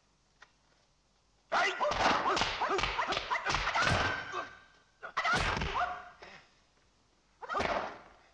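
A man's high-pitched, wavering fighting yells, with sharp thuds and whips of blows mixed in. First a run of about three seconds, then two shorter bursts.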